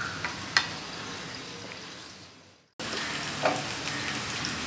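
Sliced onions sizzling in mustard oil in a steel kadai, with a sharp knock about half a second in; the sizzle fades out, and after a short gap it returns as a wooden spoon stirs the browning onions, knocking once against the pan.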